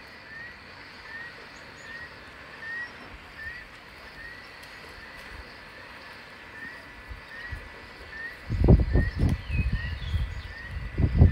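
Hippopotamus grunting: a run of loud, deep pulses starting about eight and a half seconds in and again near the end. Beneath it a bird repeats a short rising chirp about twice a second.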